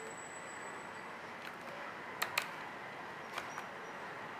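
A steady faint hiss with a few light clicks: two sharp ones close together about two seconds in, then two fainter ones about a second later.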